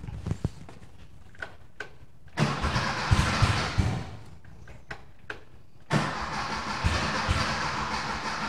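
Starter cranking the Porsche 912's air-cooled 1600cc flat-four in two tries, a short one about two seconds in and a longer one about six seconds in, the engine turning over without settling into a run. The owner suspects he is flooding it.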